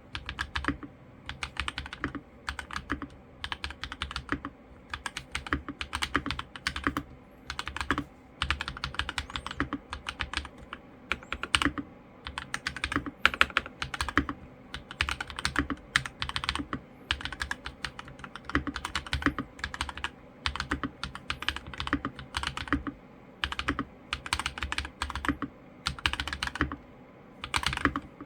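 Typing on a mechanical keyboard fitted with lubed Akko Rose Red linear switches: fast runs of keystrokes broken by short pauses, with a few louder spacebar strokes.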